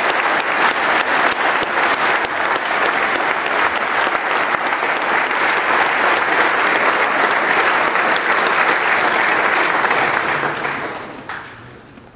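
Congregation applauding with dense, steady clapping that dies away about eleven seconds in.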